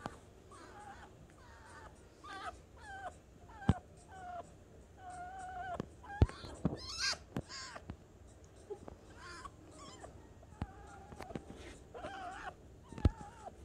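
Fennec fox whining in a string of short, wavering calls, many sliding down in pitch: his sounds of frustration and annoyance. A few sharp clicks fall among the calls.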